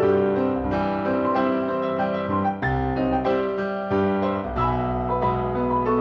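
Solo piano playing accompaniment for a ballet barre exercise: chords over deep bass notes in a steady rhythm.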